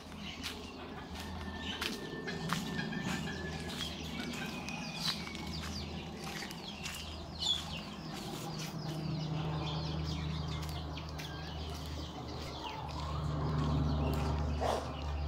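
Free-roaming domestic chickens clucking, with scattered short clicks over a steady low hum that grows louder near the end.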